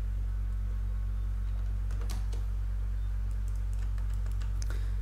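A few faint computer keyboard key presses and clicks, about two seconds in and again near the end, over a steady low hum.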